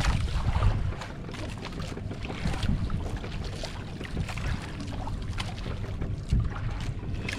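Wind buffeting the microphone and sea water lapping and slapping against the hull of a small outrigger fishing boat rocking on the swell, with scattered small splashes and knocks.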